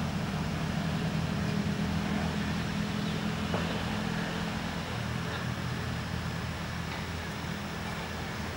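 A steady low engine hum over outdoor background noise, with a few faint ticks.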